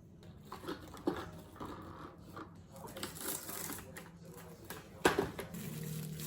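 Kitchen handling noises: scattered light clicks and rustling, with a sharper knock about five seconds in.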